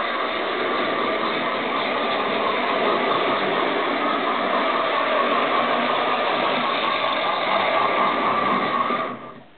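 A Hornby Dublo 3-rail model of an LMS Princess Coronation steam locomotive running on test around a track loop: a steady whirr of its electric motor, gears and wheels on the rails. The sound drops away sharply near the end.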